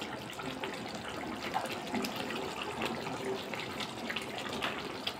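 Chicken bhuna gravy simmering and bubbling in a pan as a wooden spatula stirs it, a steady wet bubbling with many small crackles.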